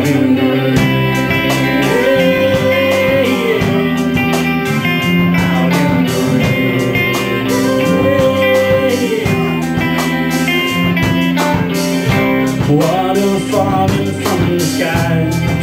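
Rock band playing live: electric guitars over bass and drums, with a melody line that arcs up and down in pitch.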